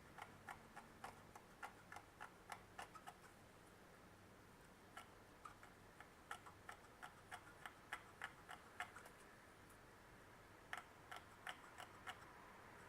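Faint, irregular clicks and ticks of a small tool scraping corrosion off a multimeter's battery contacts, coming in three runs of a few clicks a second.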